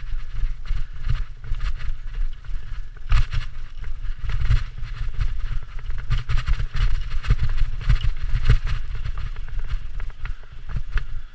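Mountain bike descending a dirt singletrack at speed: a constant clatter of the bike rattling over bumps and its tyres on leaf-covered dirt, over a low rumble of wind and vibration on the bike-mounted camera.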